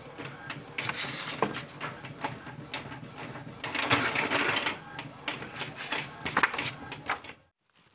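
Sheets of printed paper rustling as they are handled and flipped through by hand, with scattered irregular clicks; the sound breaks off to silence briefly just before the end.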